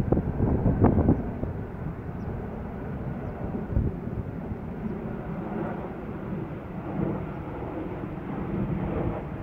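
Wind rumbling on the microphone outdoors, gusting hardest in the first second, over a low steady drone.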